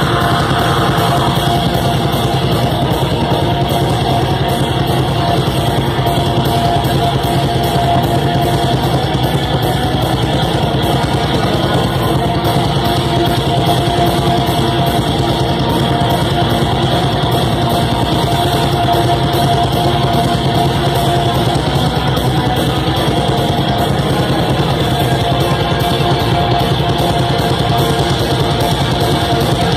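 Live black metal band playing loud and without a break: electric guitars holding sustained chords over fast, even drumming with constant cymbals, heard from within the audience.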